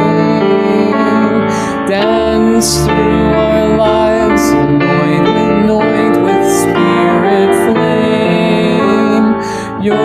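Voices singing a hymn with piano accompaniment, the sung line wavering above sustained piano chords.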